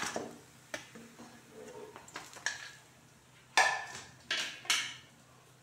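Steel kitchen utensils clinking and clattering, a perforated steel skimmer knocking against a steel plate: light scattered knocks, then three loud ringing clanks in quick succession about three and a half seconds in.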